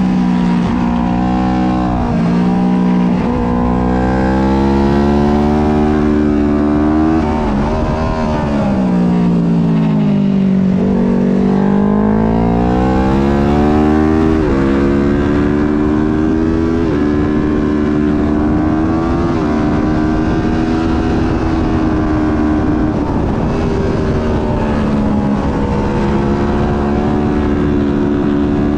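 Twin-cylinder race motorcycle's engine at racing speed from an onboard camera, revving up through the gears with sudden drops in pitch at each shift. About eight seconds in the revs fall away for a corner, then build again as it accelerates and shifts up.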